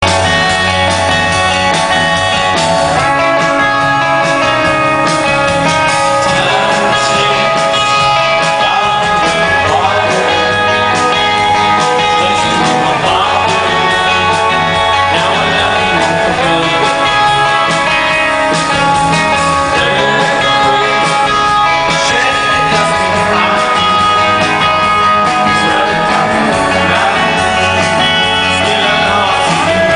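Rock band playing live: electric guitar, bass and drums with a man singing.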